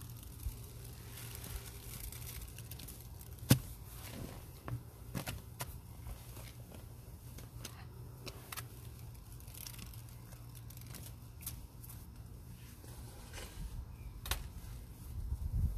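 Gloved hand squishing and scraping thick wet powder paste in a container, with scattered small clicks and crackles and one sharp tap about three and a half seconds in, over a steady low background hum.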